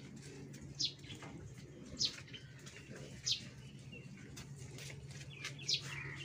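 Birds calling with short, high whistles that slide downward, repeated roughly once a second, over a steady low hum.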